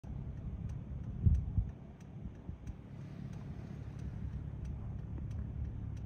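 Wind buffeting the microphone: a low, uneven rumble with two stronger gusts about a second and a half in.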